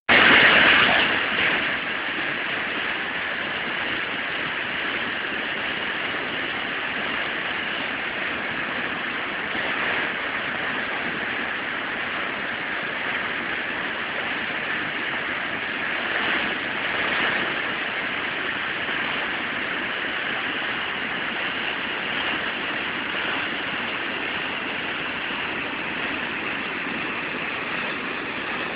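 Mountain creek running high with spring runoff: a steady rushing of water, a little louder in the first second or so.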